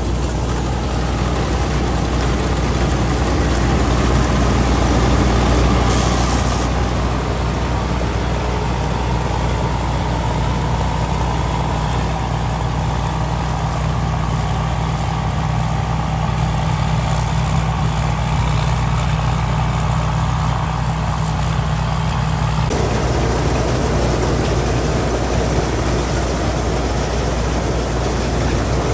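Rice combine harvester running steadily under load as it cuts and threshes dry rice: a constant low engine hum with a broad rushing noise of the machinery above it. The sound changes abruptly about two-thirds of the way through.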